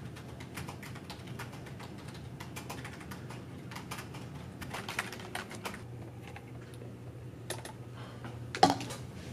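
Typing on a computer keyboard: quick irregular key clicks over a steady low hum, with one louder clack near the end.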